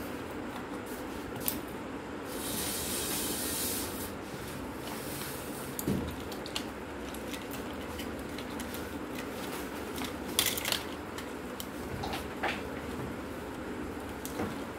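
Small clicks, taps and rubbing from the plastic housing and circuit board of a disassembled old compact camera being handled, over a steady low background hum. A short hiss-like rustle about two seconds in, with the sharpest clicks around six and ten seconds in.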